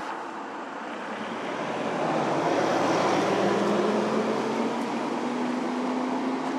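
Engine hum with a rushing noise, growing louder about two seconds in, its low pitch slowly rising.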